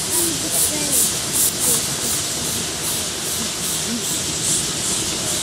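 Mount Washington Cog Railway steam locomotive hissing steam with a rhythmic exhaust chuff of about two to three beats a second; the beat fades in the middle and picks up again near the end.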